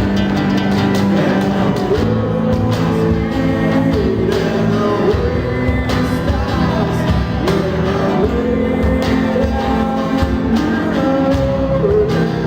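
Live acoustic band playing: strummed acoustic guitars and cajón beats, with a sung vocal line coming in about two seconds in.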